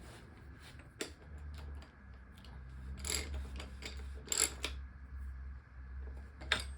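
Scattered metallic clicks and two short rattling, scraping bursts from tools and parts as a Shimano cartridge bottom bracket is fitted into a BMX frame's shell, over a steady low hum.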